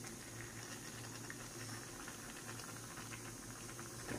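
Mushroom kaeng liang broth boiling in a frying pan: a faint, steady simmer with many small pops and crackles, over a low hum. A pile of mushrooms has just been tipped into the broth.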